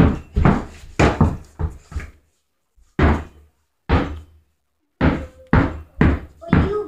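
Basketball being dribbled on a carpeted floor: a run of quick bounces, then a slower stretch with two lone bounces about a second apart, then quick bouncing again.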